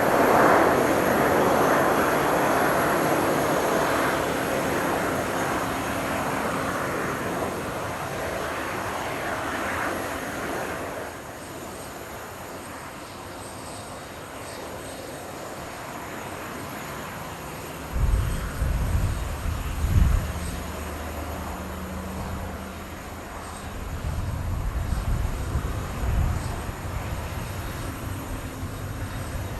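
Boeing 767-300ER jet engine noise, loud at first and fading away over about ten seconds as the airliner moves off. From about two-thirds of the way in, low gusts of wind buffet the microphone.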